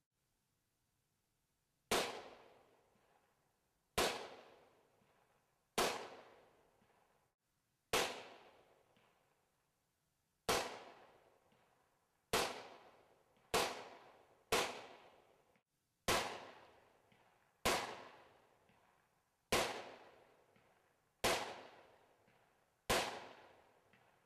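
A firearm fired about a dozen times, one shot every one to two and a half seconds. Each is a sharp report that fades out over about a second.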